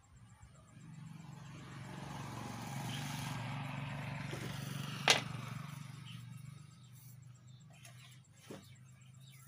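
A passing motor vehicle, its engine noise swelling over a few seconds and then fading. A single sharp click about five seconds in is the loudest sound, with a fainter click near the end.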